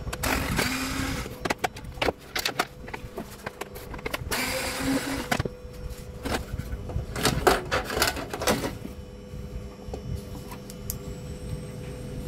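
Cordless electric screwdriver running in two short bursts of about a second each, taking out screws, with clicks and knocks of plastic parts being handled in between and after.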